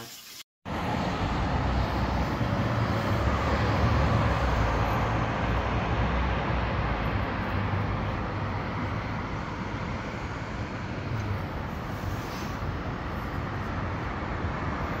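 Steady hum of distant city road traffic heard from high above the streets: an even wash of car noise with no single vehicle standing out. It cuts in abruptly after a brief silence about half a second in.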